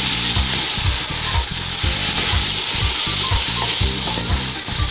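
Chopped vegetables sizzling in olive oil in a steel pot as they are sautéed and stirred with a spoon, a steady hiss. Background music with a regular low beat runs underneath.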